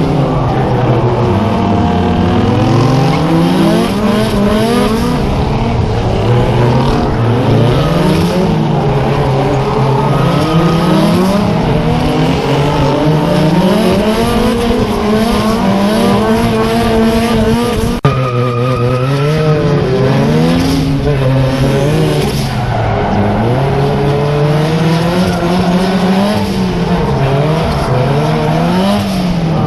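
Car engine revving up and falling back over and over, every two to three seconds, with tyres squealing, as a car drifts. There is a sudden break about eighteen seconds in, after which the same engine-and-tyre sound goes on.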